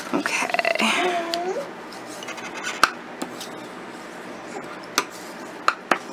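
Paper being folded and creased with a bone folder: rustling and scraping of the sheet, with a few sharp taps of the tool against the paper and table. A high child's voice sounds briefly, rising in pitch, about a second in.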